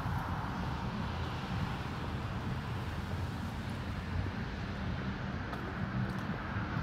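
Steady outdoor city noise: a low, even rumble of distant traffic.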